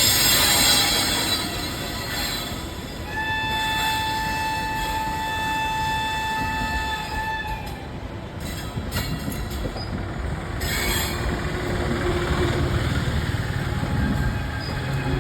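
WAP7 electric locomotive's horn sounding one long, steady blast of about four and a half seconds, starting about three seconds in, over the continuous rumble and wheel noise of the departing train.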